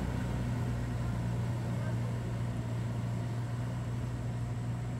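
Engine of a homemade truck running steadily, with an even low drone.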